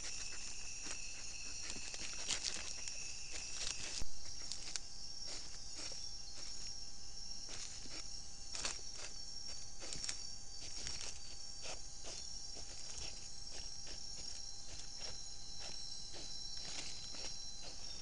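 Insects trilling and buzzing steadily in a high pitch, with a lower trill that stops about four seconds in. Over it come repeated dry rustles and crackles in leaf litter as a nine-banded armadillo forages along the ground, with a sharper snap about four seconds in.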